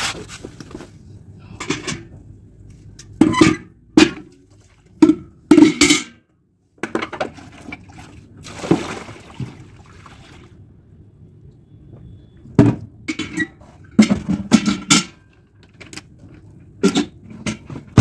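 Plastic washtubs and a steel bucket being moved and knocked about during hand laundry, giving a string of sharp knocks and clatters. A short splash of water comes about halfway through.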